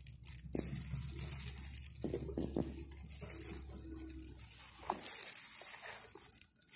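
Faint rustling and light handling noises from plastic-gloved hands working a small plastic toy, over a low hum that fades out about five seconds in.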